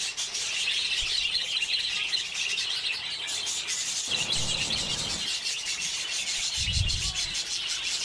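Phone scraping and rubbing against the inside of a wooden budgie nest box, with a couple of dull bumps, over the steady chirping of budgerigars.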